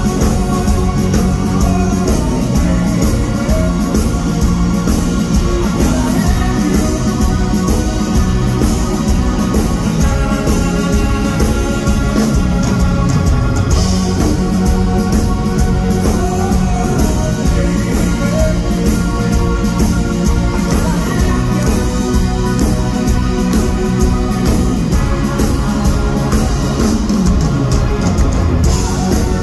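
A live rock band playing loudly, with electric guitars, bass guitar and a drum kit, heard from within the audience.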